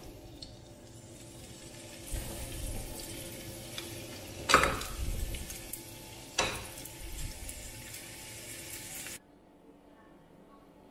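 Frozen spinach portions going into a hot, oiled frying pan: a steady sizzle with two knocks as pieces are dropped in and pushed about, the louder one about halfway through. The sound cuts off suddenly near the end, leaving faint room quiet.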